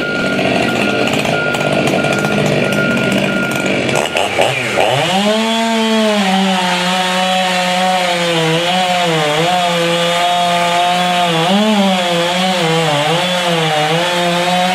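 Large gas chainsaw cutting wood. About four seconds in, its pitch dips sharply and then recovers, and it holds a steady, slightly wavering speed through the rest of the cut. A faint repeated high beep sounds during the first few seconds.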